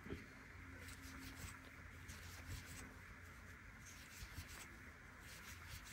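Faint soft rubbing and light irregular ticks of a crochet hook drawing yarn through stitches as single crochet stitches are worked, over a low steady hum.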